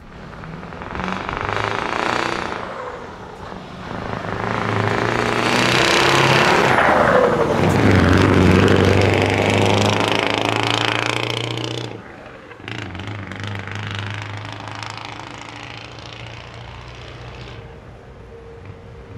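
A Scania 144L's V8 diesel with open exhaust pipes approaches and drives close past, its loud, rattly engine note swelling and then dropping in pitch as it goes by. After a sudden drop at about twelve seconds, it is heard further off, pulling away in a steady drone.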